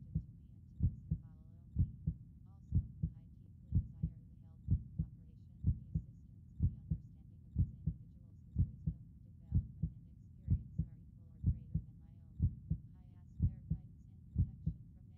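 Heartbeat: steady low double thumps (lub-dub), repeating about once a second.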